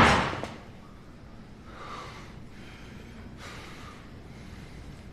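A loud rush of noise fading away in the first second, then a quiet pause with two faint, short breaths or sniffs, about two and three and a half seconds in.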